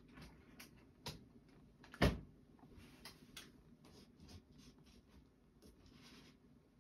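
Scattered light clicks and knocks in a quiet room, the loudest a single knock about two seconds in.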